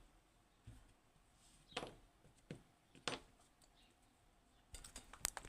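Faint, sparse clicks and taps of small metal parts from a Western Electric 30B lever lock being handled, with a quick run of sharper clicks near the end as the lever pack is picked up.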